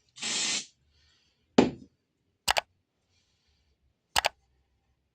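A short hissing burst, then a single sharp knock about a second and a half in, followed by three sharp double clicks spaced about a second and a half apart.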